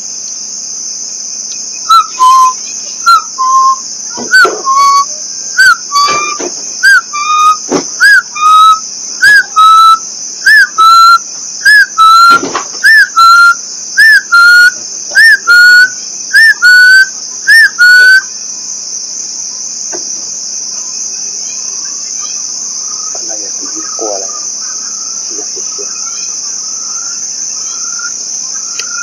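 A loud whistled call repeated more than once a second for about sixteen seconds, each note a short tone that rises and falls; fainter notes of the same call carry on near the end. Underneath, a steady high insect drone.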